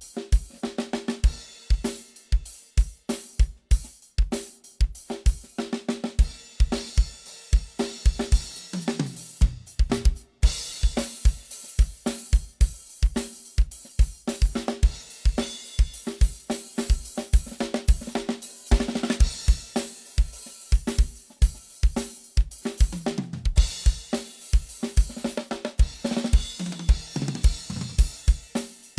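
Acoustic drum kit played solo for a sound check: a driving kick drum and snare beat under hi-hat and cymbals. Several tom fills run down in pitch, and cymbals crash about ten seconds in and again near the end.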